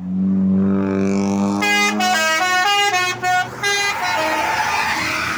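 A passing tour bus sounds its horns: a low steady horn note at first, then the basuri musical horn plays a quick tune of stepped notes for about two seconds. After that the bus's engine and tyres go by as a loud rushing noise.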